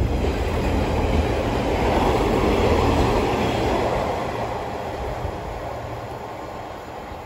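A Class 142 Pacer diesel multiple unit passing through the station without stopping. Engine and wheel-on-rail rumble swells to a peak about two to three seconds in, then fades steadily as the train pulls away.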